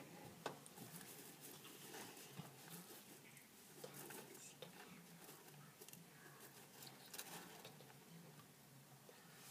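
Hamster eating: faint, irregular crunching and clicking as it chews its food, with a sharper click about half a second in.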